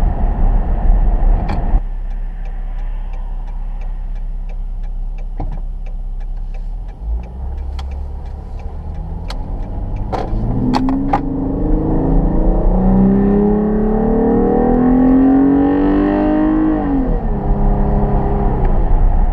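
2013 Dodge Durango's 3.6 Pentastar V6 breathing through a K&N cold air intake: it eases off after about two seconds and runs quietly with a regular light ticking, then from about ten seconds in accelerates hard, its pitch climbing for several seconds before dropping back near the end. The intake noise under acceleration is pretty loud.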